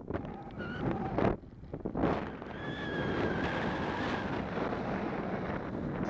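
Wind rushing over the microphone of a camera in paragliding flight, rising and falling in gusts. A faint steady whistle sounds for about a second and a half near the middle.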